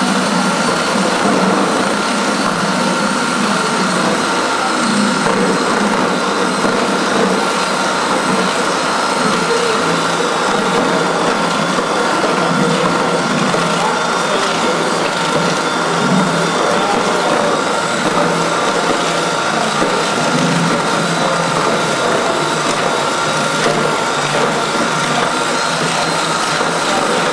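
A machine running steadily, with a constant whine over a rough, crunching, scraping noise.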